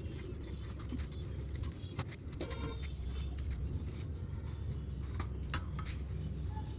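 White oyster mushrooms being pulled apart by hand and dropped into a steel bowl: scattered soft clicks and rustles of the pieces over a steady low background rumble.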